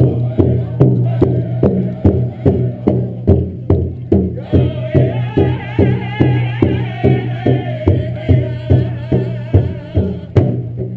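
Powwow-style drumming: an even drumbeat of about three strokes a second. High, wavering voices singing join about four seconds in.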